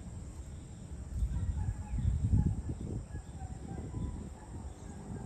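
Outdoor evening ambience: faint, short bird calls over a low rumble that swells about a second in, is loudest around two and a half seconds, then eases off.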